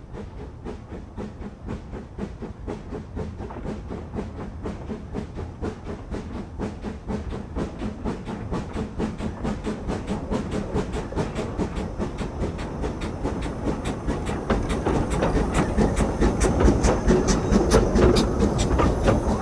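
Small narrow-gauge steam locomotive working past, its exhaust beating in a steady rhythm over the hiss of steam from the cylinders. It grows louder as it approaches, and is loudest near the end as it and its carriages go by.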